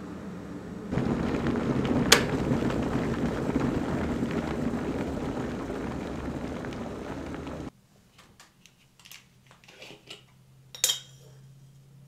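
Bosch electric kettle heating water, a loud rumbling hiss of water nearing the boil, with one sharp click about two seconds in. The rumble stops abruptly past the middle, leaving light rustles of a plastic bag and small clinks at a mug on a countertop, one clink sharper near the end.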